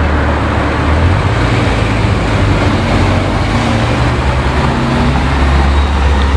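Ferrari 308's V8 engine running with a steady low note as the car drives slowly past, with road and traffic noise around it.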